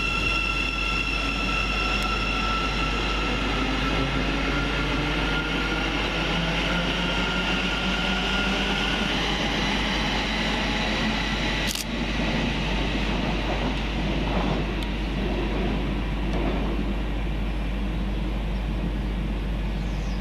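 Thameslink Class 700 electric multiple unit pulling away, its electric traction whine held as steady high tones over rolling noise that fade about halfway through. A single sharp click comes about 12 seconds in.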